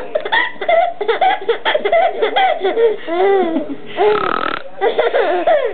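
A baby girl laughing in short, repeated bursts, with an adult woman's laughter and voice mixed in, and a raspy burst of noise about four seconds in.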